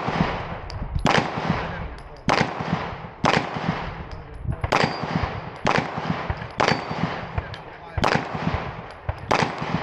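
Glock 19X 9mm pistol fired at steel plates in a timed string: eight shots, spaced about a second apart, each with a short echoing tail.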